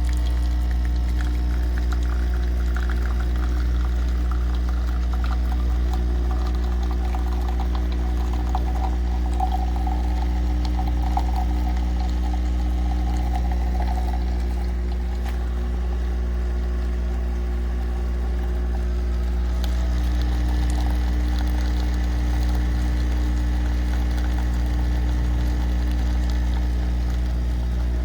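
Nespresso CitiZ capsule machine brewing a large cup: its pump hums steadily while coffee pours into the mug.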